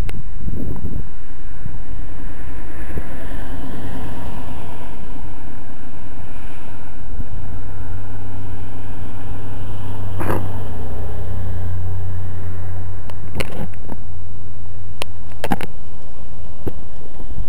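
Wind rumbling on the microphone outdoors, loud and steady. A low hum joins it for a few seconds midway, and several sharp clicks come in the second half.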